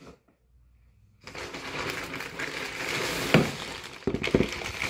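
Thin plastic packaging bag crinkling and rustling as it is handled and pulled open, with a few sharper crackles. It starts after about a second of near silence.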